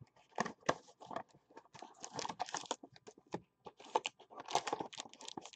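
A box of football trading cards being opened and its packs pulled out by hand: irregular tearing, crinkling and clicking of cardboard and wrapping.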